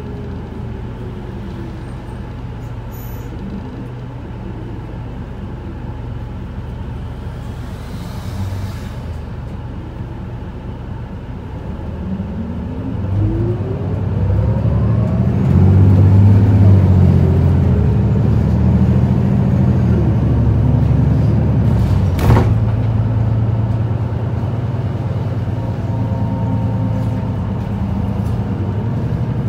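Interior running sound of an Isuzu Erga QKG-LV234L3 city bus, its four-cylinder turbodiesel engine. The bus runs steadily and fairly quietly at first, then about twelve seconds in the engine note rises as it accelerates, loudest a few seconds later, with a single sharp knock about two-thirds through.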